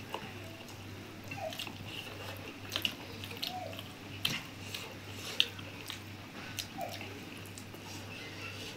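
Close-up eating sounds: fingers squishing wet rice and curry on steel plates, with wet chewing and lip-smacking clicks scattered through, over a steady low hum.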